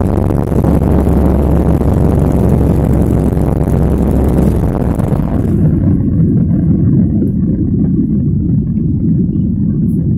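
Boeing 737 jet engines at takeoff thrust, heard from inside the cabin over the wheels rumbling on the runway. About five seconds in, the aircraft lifts off: the runway rumble stops and the hiss falls away, leaving a steady low drone of the climbing jet.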